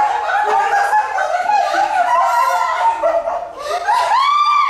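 A high-pitched voice howling, sliding and wavering up and down in pitch, with a long rising-and-falling note near the end.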